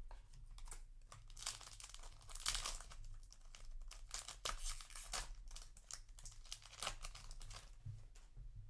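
Foil Yu-Gi-Oh booster pack wrapper being torn open and crinkled in the hands, in several stretches of dense crackling.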